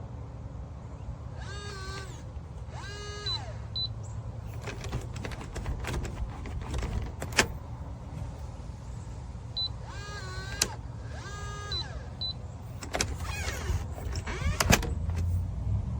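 The TEEHO TE002 electronic deadbolt's small motor whirs four times, about half a second each, in two pairs as it drives the bolt. There are short high beeps from the keypad and a few sharp clicks over a steady low rumble.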